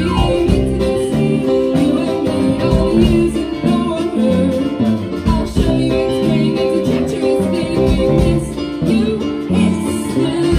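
A live band playing a song, with a girl singing lead into a microphone over bass guitar, drums and keyboard.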